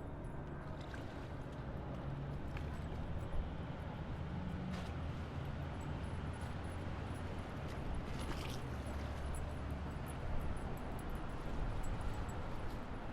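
Steady low rumble of highway traffic heard from a distance, with a few faint clicks scattered through.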